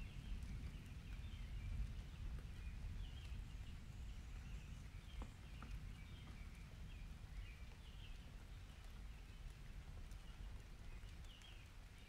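Quiet, steady low rumble of a distant summer thunderstorm, with small birds chirping briefly now and then over it.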